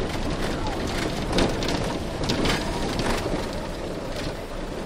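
Steady low rumble and noise of a vehicle on the move, with a few sharp rattles about one and a half, two and a half and three seconds in.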